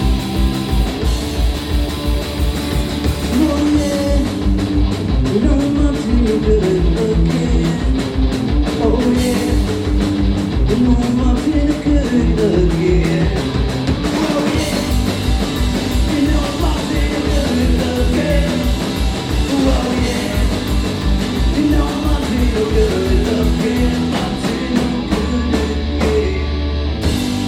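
A punk rock band playing live: electric guitars, bass and drums over a fast, steady beat.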